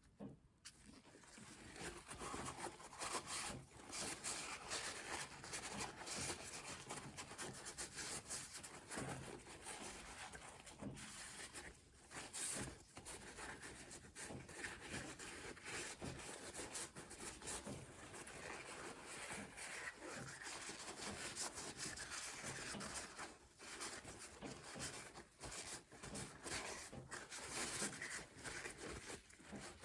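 Close handling and rubbing on a briar pipe as it is worked over by hand: a continuous scratchy rustle with many small clicks and knocks.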